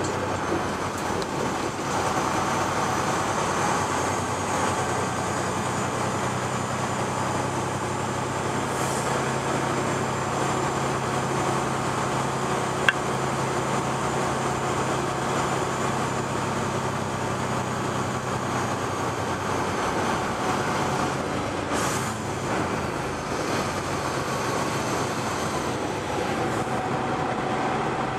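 Semi truck's diesel engine running at low speed, heard inside the cab as a steady drone while the truck rolls slowly. A single sharp click about halfway through.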